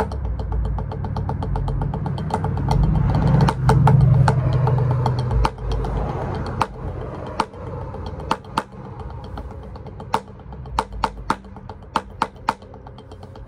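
Drumsticks played on a drum practice pad: fast rolls, then sparser single accents in the second half. Under them a passing motor vehicle's engine rumble swells, is the loudest sound about four seconds in, and fades by about six seconds.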